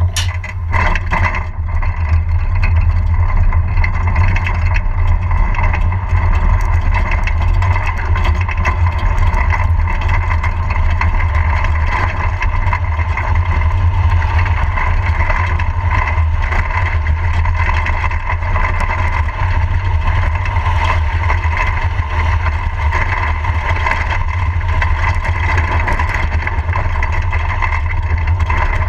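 Engineless soapbox cart rolling fast downhill on asphalt, heard from a camera mounted on the cart: a loud, steady rumble of the wheels on the road with wind noise on the microphone, and a steady whine from the wheels above it. A few clicks and knocks in the first second as the cart leaves the start, after which the sound builds over about two seconds and holds evenly.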